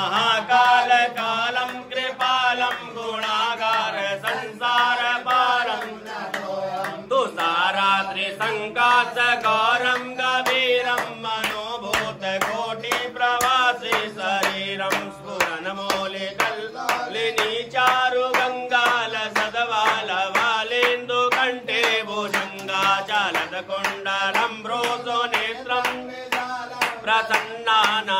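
A man chanting Vedic mantras for Rudrabhishek in a continuous sing-song recitation.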